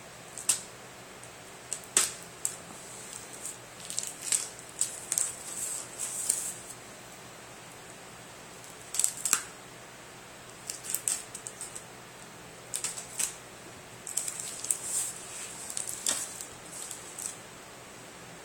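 Box cutter blade slitting clear packing tape along the edge of a cardboard mailer box: short scratchy cuts and crackles of tape in irregular spurts, with a few sharp clicks and pauses between.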